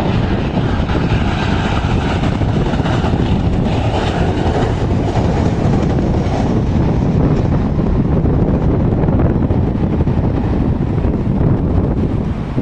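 Boeing 737 jet airliner passing low on its landing approach: a steady engine rumble, with wind buffeting the microphone.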